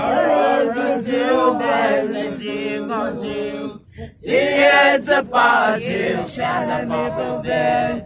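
A group of people, mostly men, singing together unaccompanied in held, sustained notes, with a brief break in the singing about four seconds in.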